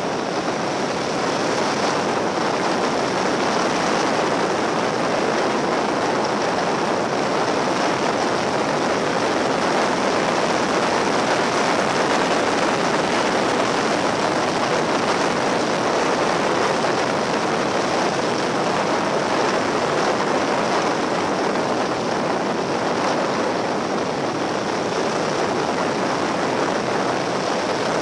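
Steady wind and road noise on the on-board microphone of a Yamaha XT1200Z Super Ténéré motorcycle riding at road speed, with its engine running underneath.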